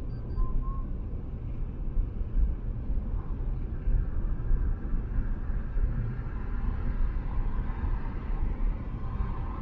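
Steady low rumble of a car cruising at expressway speed: tyre noise on the asphalt and wind noise, heard from the moving car.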